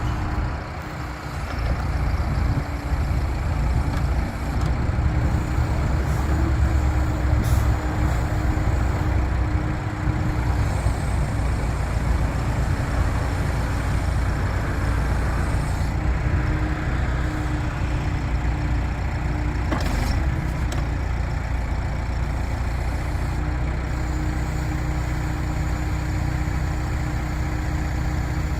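Case 580 Super K backhoe's turbocharged diesel engine running steadily. Two brief sharp sounds cut in, about seven and twenty seconds in.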